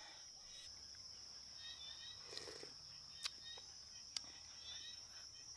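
A steady, high-pitched insect drone, with a few sharp clicks about three and four seconds in.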